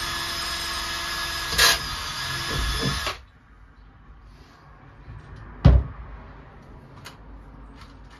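Cordless drill running steadily, driving screws to fix a plywood lining panel onto a van's sliding door; it stops about three seconds in. A single loud thud follows near the middle.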